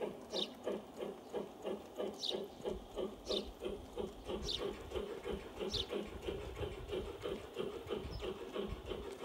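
Model steam locomotive of an LGB garden railway chuffing steadily at about four beats a second as the train runs, with a few short high chirps over it.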